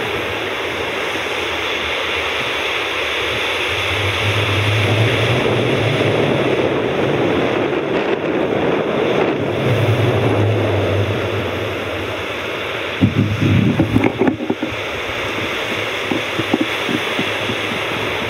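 Steady rushing outdoor noise, with low wind rumble on the microphone in two spells and a cluster of knocks about thirteen to fourteen seconds in.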